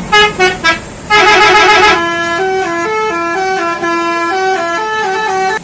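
Basuri telolet multi-tone bus horn playing its jingle: a few short toots, then a quick warbling trill, then a stepping melody of held notes.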